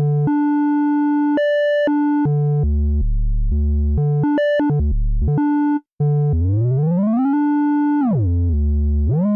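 MES Mini 11 software synthesizer playing a held, fairly pure tone whose pitch jumps up and down in steps as oscillator 2 is detuned by octaves and semitones. It cuts out briefly about six seconds in, then glides smoothly up and back down in pitch.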